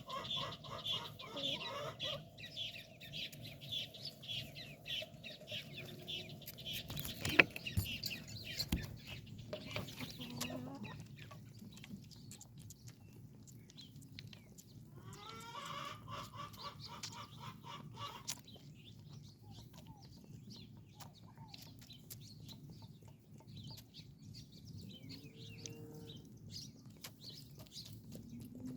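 Farmyard birds calling in quick repeated bursts, once near the start and again around the middle, over a low steady background, with a single sharp knock about seven seconds in.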